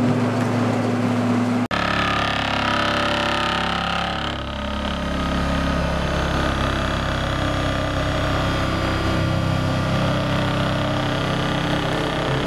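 Diesel construction machinery running: a roller compactor's engine at first, then, after an abrupt cut, an excavator-mounted vibratory hammer driving a steel sheet pile. The hammer gives a steady droning hum that sinks in pitch over its first couple of seconds, then holds.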